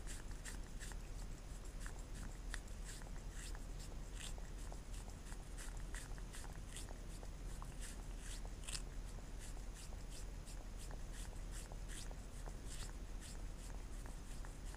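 A cat licking jelly out of a small plastic cup: a run of quick, wet lapping clicks at about three a second.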